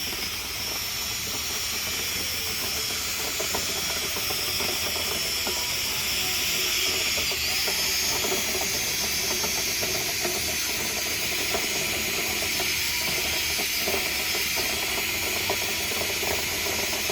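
Steady loud rush of air through a dryer vent duct while it is being cleaned out, with a busy rattling and scraping of lint and debris inside the duct. It starts and stops abruptly, like a machine being switched on and off.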